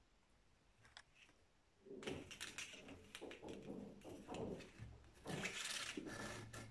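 Hands handling thin cord and wooden slats on a covered table: irregular rustling and scraping that starts about two seconds in and is loudest near the end, after a faint click about a second in.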